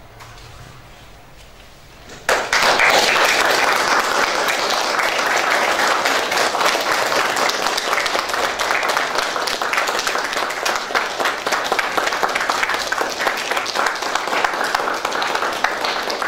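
Audience applauding. The clapping breaks out suddenly about two seconds in and keeps up steadily.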